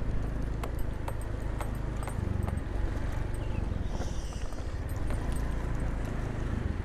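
Motor scooter engine running steadily at low riding speed, its note shifting slightly about two seconds in, with frequent light clicks and rattles.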